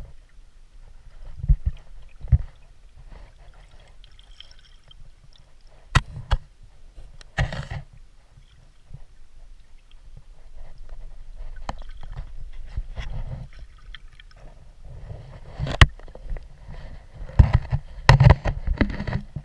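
Handling noise of a camera moved underwater along a rocky stream bed: irregular knocks and scrapes against the stones over a low water rumble, with a cluster of louder knocks near the end.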